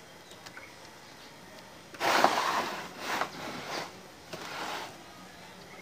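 Engine crankcase half scraping and rubbing as it is turned on the plastic crate it rests on. It comes in four noisy bursts over about three seconds, starting about two seconds in, the first the loudest.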